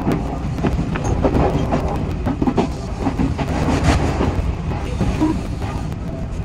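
Odakyu 8000 series electric train running, heard from the driver's cab: a steady low rumble with rapid, irregular clicks and clatter of the wheels over the track.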